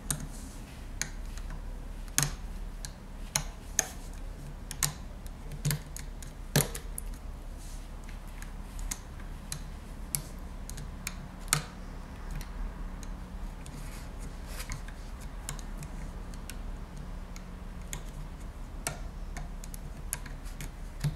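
Irregular small plastic clicks and taps, a few sharper than the rest, as a plastic hook tool picks up rubber bands and pulls them over the pegs of a plastic loom board.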